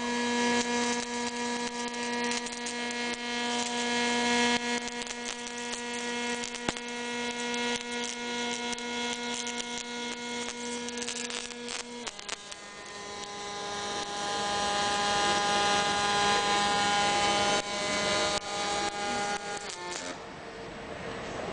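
Robotic gas-shielded wire arc welding: a dense, steady arc crackle with a humming tone and overtones that shifts to a higher pitch about halfway through. The arc cuts out near the end.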